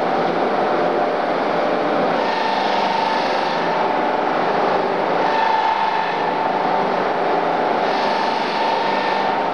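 Robot-driven polishing wheel spinning against a tubular steel seat frame: a steady whine with a hiss that swells about every three seconds as the wheel works along the tube.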